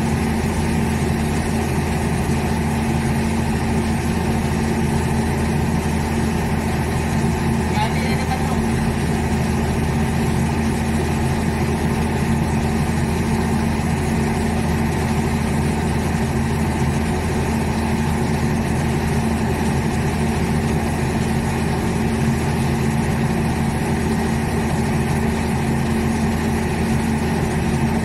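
A boat's engine idling, an unbroken steady hum that holds the same pitch throughout.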